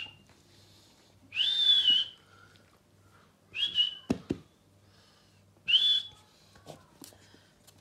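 French bulldog puppy whining: three short, high-pitched cries about two seconds apart, with a sharp tap about four seconds in.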